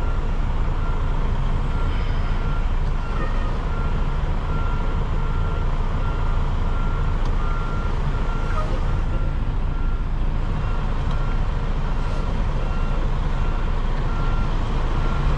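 Truck backup alarm beeping at an even pace, about once a second, over the steady low running of a Freightliner Cascadia's diesel engine as the truck reverses, heard from inside the cab.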